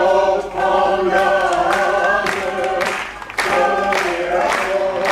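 A mixed group of men and women singing together a cappella, with long held notes and short breaks between phrases.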